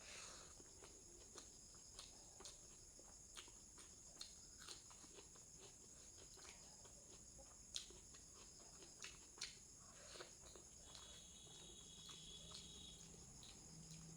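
Faint mouth clicks and chewing from someone eating, scattered irregularly, over a steady high-pitched drone of crickets.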